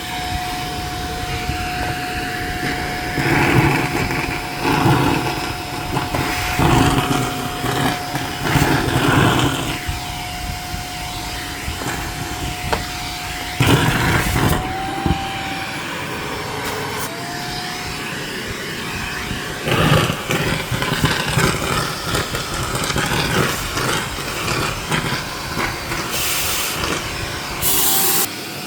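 Shark vacuum cleaner running with a steady motor whine while it sucks up packing peanuts, in repeated louder rattling surges as they go up the nozzle. A bit past the middle, the whine dips in pitch and then recovers.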